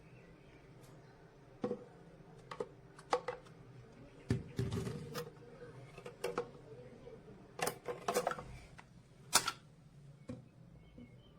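Irregular clicks and knocks, a dozen or so spread unevenly, with a short scuffing rustle about four seconds in, as of hard plastic parts being handled; there is no motor running.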